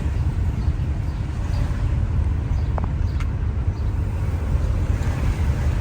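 Steady low rumble of a car in motion: engine and road noise heard from inside the cabin.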